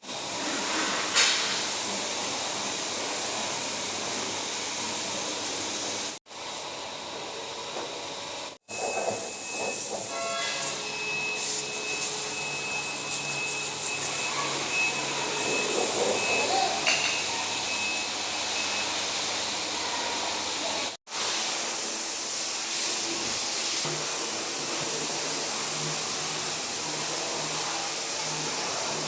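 Steady hiss of compressed air, broken by several sudden cuts. A faint whistle-like tone runs through the middle part.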